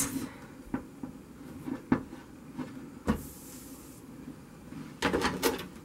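Gas soldering iron being handled against lead came strips on a wooden bench: a few light knocks of the iron against the lead, the sharpest about two seconds in, a short hiss just after three seconds, and a quick cluster of knocks and scrapes near the end.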